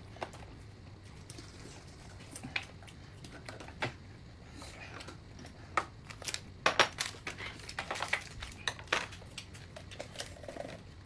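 Scattered light clicks and knocks of cups, utensils and packaging being handled, with some crinkling, thickest in the middle stretch.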